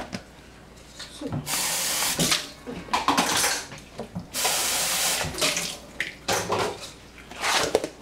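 Kitchen tap running into a sink in two bursts of about a second each, with shorter clattering sounds between and after.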